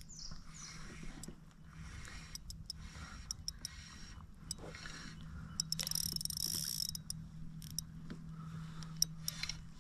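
Daiwa Airity spinning reel being wound in against a hooked fish, its gears turning with a low steady whir and small clicks, with a brief hiss about six seconds in.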